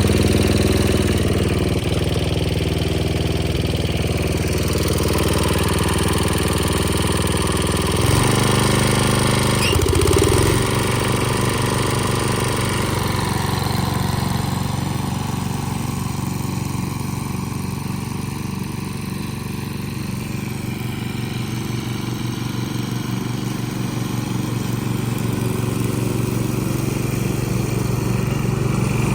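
Snapper riding mower's 12.5 horsepower engine running steadily, with a brief change in pitch about eight to ten seconds in. It grows fainter in the middle and louder again near the end.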